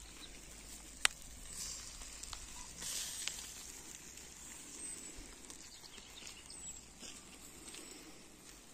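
Fish fillets sizzling over a charcoal grill, with scattered small crackles and one sharp pop about a second in.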